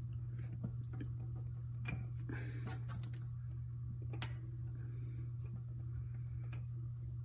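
Faint irregular clicks and scrapes of a metal oil pressure sender being turned by hand against its threaded port in the engine block, not catching its threads, over a steady low hum.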